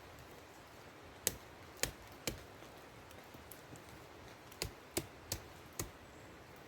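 Seven sharp, short knocks in two quick groups, three and then four, faint against a quiet background, from hand work on a wooden fence.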